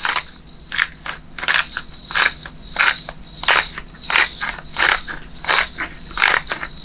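Hand pepper grinder cracking black peppercorns, twisted in quick, even strokes of about two crunches a second.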